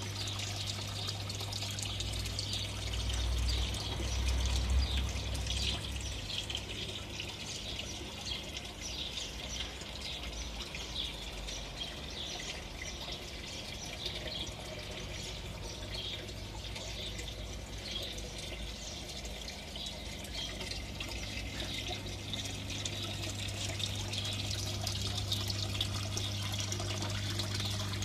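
Water trickling and splashing as it circulates through a home hydroponic system's PVC growing channels, over the circulation pump's steady low hum. There is a brief low rumble a few seconds in.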